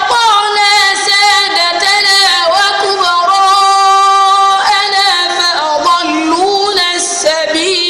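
A boy's high voice chanting Quran recitation in the melodic tajweed style, drawing out long held notes with ornamental turns and slides in pitch.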